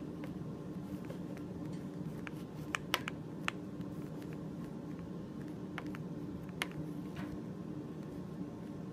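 Scattered light clicks and taps of fingers and fingernails against a ceramic bowl as polymer clay is pressed and smoothed into it, over a steady low hum.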